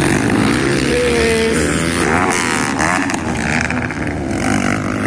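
Several motocross dirt bike engines revving, their notes rising and falling as the bikes accelerate and ease off over the jumps, overlapping one another.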